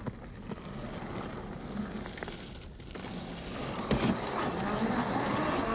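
1/10-scale RC crawler's brushed 540 motor and drivetrain whirring with a wavering pitch as the throttle varies, with a sharp knock about four seconds in and the sound growing louder toward the end.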